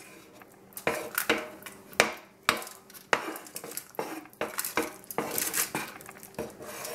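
A metal utensil clinks and scrapes against a foil-lined glass baking dish as it swirls thick cake batter. The sharp, irregular clicks start about a second in.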